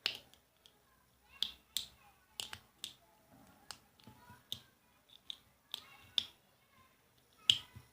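Irregular small clicks and taps, a dozen or so, from a toy magic-trick drawer box and coin being handled.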